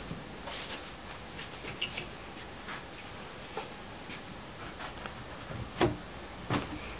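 Scattered light knocks and taps of bunk bed panels being handled as the top rail is fitted onto the uprights, with two louder knocks about six seconds in.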